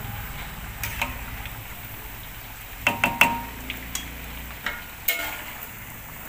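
Potato patties (perkedel) deep-frying in hot oil in an aluminium wok: a steady sizzle while they are still pale, not yet golden. A few sharp clicks and knocks sound over it, the loudest pair about three seconds in.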